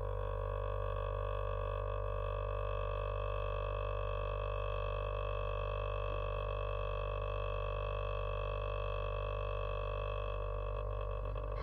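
Home cotton candy machine running, its electric spinner head giving a steady hum with a steady higher whine over it; the whine fades out near the end while the hum carries on.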